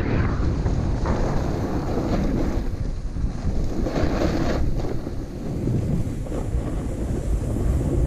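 Wind rushing and buffeting on the microphone as a snowboard slides fast over snow, with swells of hiss from the board's edge scraping the snow in turns.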